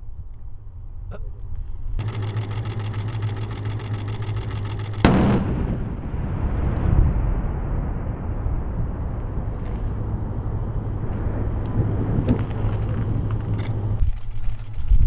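A heavy engine rumbles low and steady, with a rapid buzzing rattle from about two seconds in; about five seconds in a sudden explosive blast cuts in, followed by a long rolling rumble that slowly dies away.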